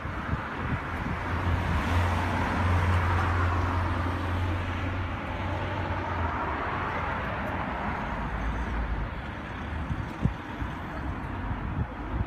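A motor vehicle passing on the street: its engine hum grows over the first couple of seconds and dies away about six seconds in, over steady traffic noise.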